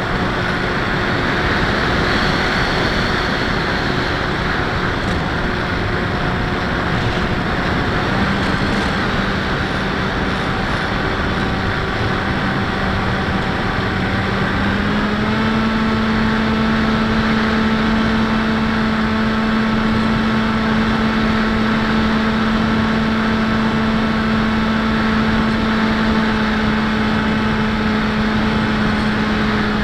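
Electric brushless outrunner motor (D2826-6, 2200 kV) spinning an 8x6 propeller on a Bixler 1.1 RC plane, heard from the onboard camera in flight with wind rushing past: a steady whine. Its pitch steps up about a quarter of the way in and again about halfway, as the motor speeds up.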